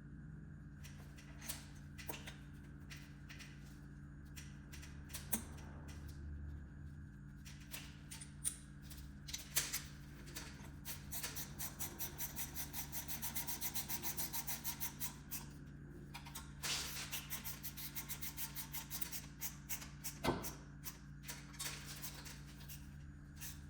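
Hand tools working on engine bolts: scattered metal clicks and clinks, with two runs of rapid, evenly spaced clicking lasting a few seconds each, over a steady low hum.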